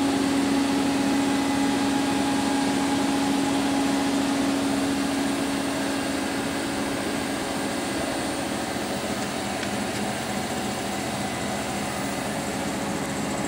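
Steady machine hum and fan-like whir from a powered-up Kitamura Mycenter-1 vertical machining center and its electrical cabinet. A steady low drone in the sound fades about halfway through.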